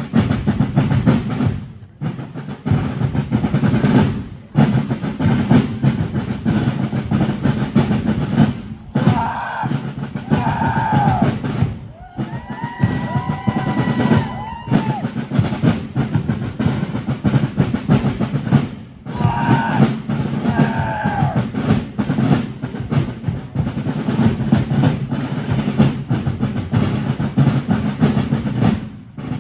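Snare and bass drums of a fife-and-drum corps playing a marching cadence with rolls, breaking off briefly between phrases. A few short sliding high tones sound over the drums in the middle.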